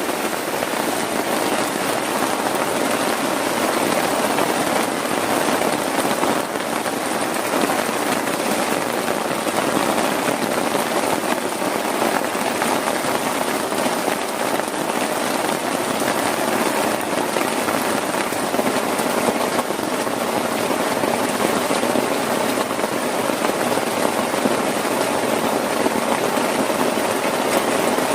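Heavy rain falling steadily, a dense continuous wash of drops without letup.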